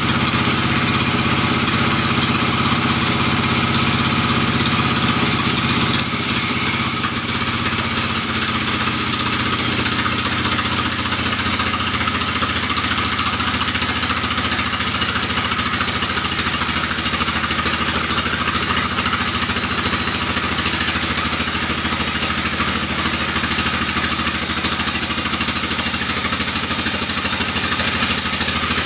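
Stationary band sawmill running steadily while its blade rips lengthwise through a large albasia (sengon) log: an even, continuous mechanical drone with a hiss of cutting over it.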